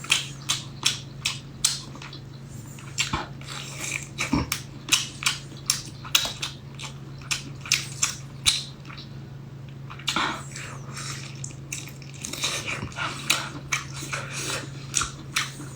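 Close-miked chewing and lip-smacking while eating a cooked squid full of roe: an irregular run of wet clicks and smacks, several a second, over a steady low hum.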